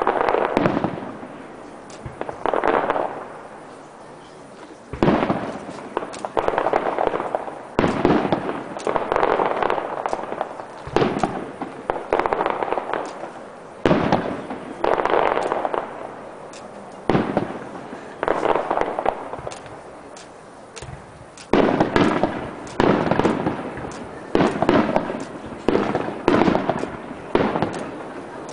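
Aerial fireworks display: shells bursting one after another every second or two, each bang dying away in a crackling tail. In the last third, the bursts come faster and denser, with more crackle.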